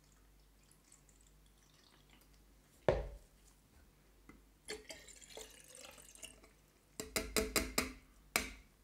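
Water trickling faintly into a glass measuring cylinder, then a sharp knock about three seconds in as something is set down on the bench. Water is then poured from the cylinder into a brown glass bottle, ending in a quick run of glass clinks and knocks near the end.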